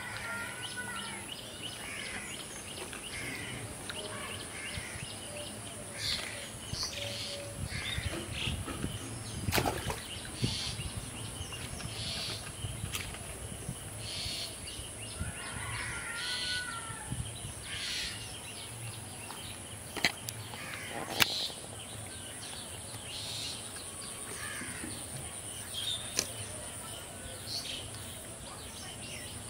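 Birds calling on and off over a steady high-pitched buzz, with a few sharp clicks, the loudest about two-thirds of the way through.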